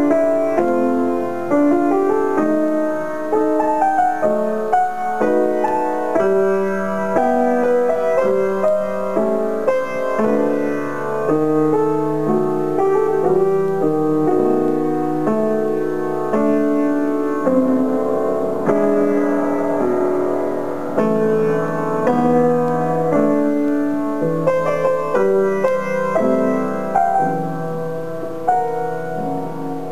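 Solo piano music: a continuous flow of melody over chords, played without pause.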